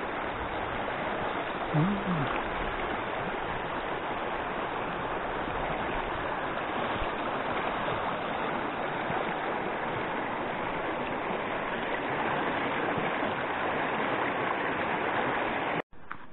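A small, clear mountain stream rushing over rocks close to the microphone, a steady, even rush that cuts off suddenly near the end.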